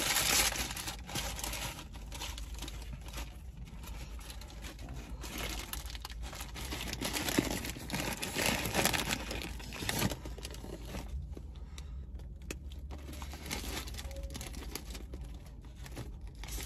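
Paper fast-food wrapper being unfolded and handled, with irregular rustling and crinkling and scattered sharp crackles throughout.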